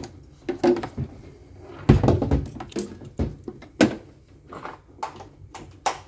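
A series of irregular knocks and clunks, about nine over a few seconds, from hands working on the opened twin-tub washing machine.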